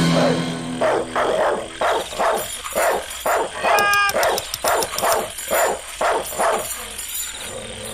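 A dog barking over and over, about two barks a second, with one higher, pitched yelp about halfway through.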